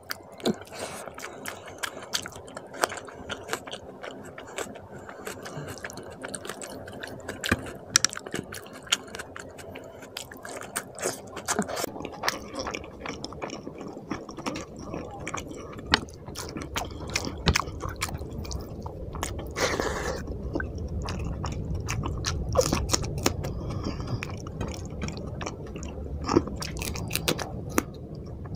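Close-miked chewing of a mouthful of rice and fish curry, with many short sharp mouth clicks.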